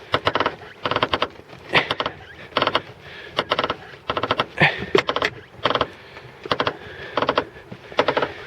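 Left front suspension of a VAZ-2111 squeaking as the steering wheel is turned, in short pitched creaks repeating about once a second: the creak of a worn strut mount bearing.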